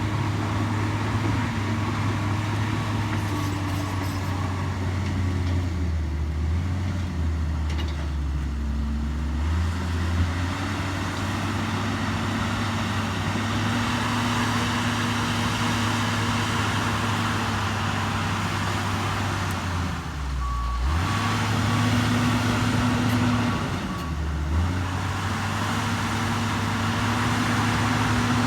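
Bulldozer's diesel engine running steadily under work. Its note drops briefly three times, about a third of the way in, past the middle, and shortly after, as the load changes.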